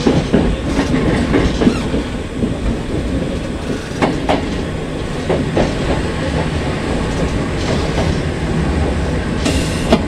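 Kotoden electric train running, heard from inside the driver's cab: a steady low rumble with irregular clicks of the wheels over rail joints and points. A short hiss comes near the end.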